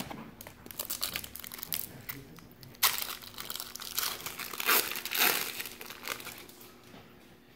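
Plastic wrapper of a 1993-94 Fleer Ultra basketball card pack crinkling as it is torn open and handled, in irregular bursts. It is loudest about three and five seconds in and dies away near the end.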